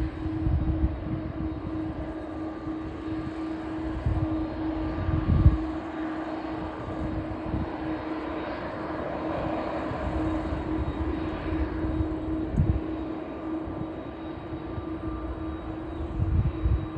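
Distant jet airliner's engines droning as it rolls along the runway after landing, with a steady held tone under a roar that swells in the middle. Gusts of wind buffet the microphone several times.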